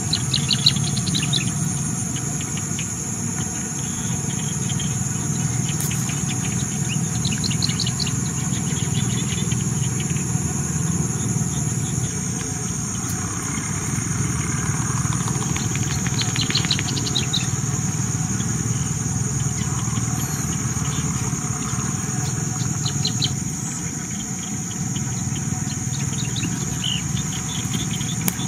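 Steady high-pitched insect chorus, with short bird chirps now and then, over a low steady rumble.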